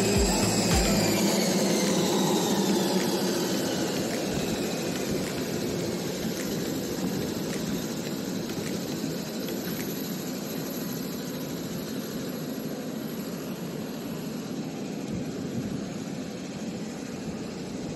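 Jet airliner noise on an airport apron: a steady rushing roar with a high whine that falls in pitch over the first few seconds, the whole slowly getting quieter.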